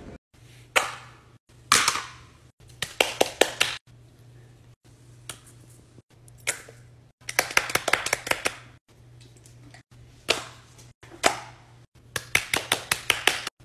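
Fidget toys being handled on a paper-covered table: single sharp taps, and runs of quick clicking pops from silicone pop-it bubbles being pressed, in short bursts separated by brief gaps.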